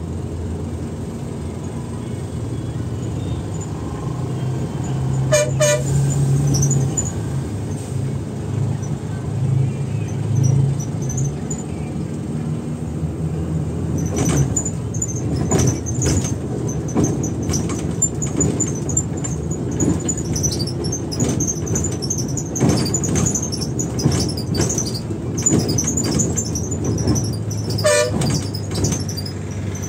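Volvo air-conditioned bus on the move: a steady low engine hum and road noise, with two short horn toots, about five seconds in and near the end. From about halfway through come many clicks and high-pitched squeaks and rattles.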